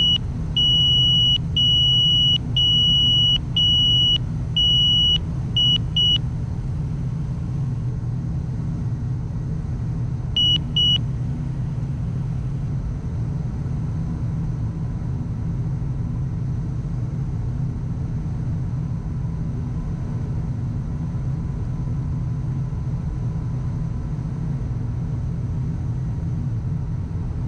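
Gulfstream business jet's trim-in-motion aural alert beeping loudly in a rapid series of short, even high beeps for about six seconds as the pitch trim runs, with one more brief beep around ten seconds in. Under it is a steady low rumble of cockpit noise on the approach.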